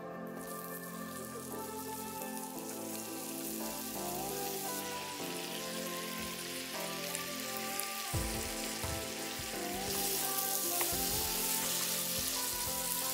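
Apples frying in butter and sugar in a pan, a steady sizzle that grows louder about five seconds in and again near ten seconds, under background music.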